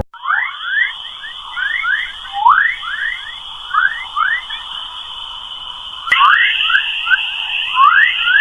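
Sonified space signal: a steady high whine with quick rising chirps overlapping at irregular intervals beneath it. The whine grows louder about six seconds in.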